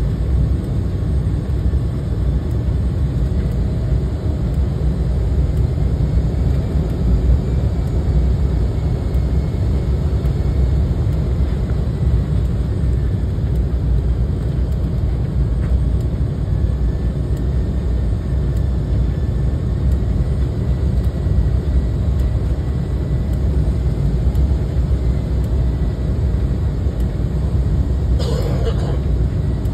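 Steady cabin noise inside an airliner descending on approach: an unbroken deep rush of jet engines and airflow heard from a window seat. A short, higher sound cuts in near the end.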